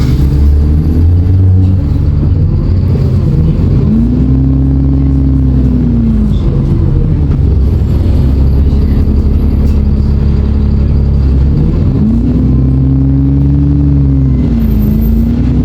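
Diesel engine of an ADL Enviro 400 double-decker bus under load, a heavy low drone. Twice the engine note climbs and then falls away as the bus accelerates and changes gear, and it begins to climb again near the end.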